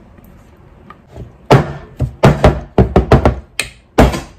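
Metal bundt pan full of cake batter being rapped down on a countertop: a quick run of about ten loud thumps, starting about a second and a half in, to settle the batter and knock out air bubbles.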